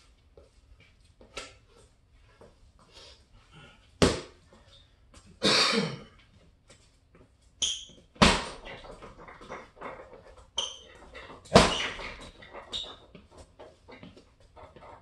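Boxing gloves striking a hanging heavy punching bag: several hard thuds a few seconds apart, some coming as a quick pair, with light taps and squeaks between and a longer rasping sound about five and a half seconds in.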